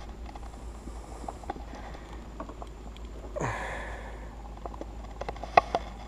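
Quiet fish-handling sounds: a few light clicks and taps as a red drum is lifted off a plastic measuring board with a lip-grip tool, with a short breathy sound about three and a half seconds in.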